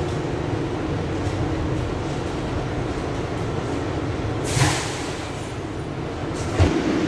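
Inside a New York subway R62A car arriving at a station: a steady low rumble of the car and its running gear, then about four and a half seconds in a short sharp hiss of air as the train comes to rest, typical of the air brakes. A single thump follows near the end.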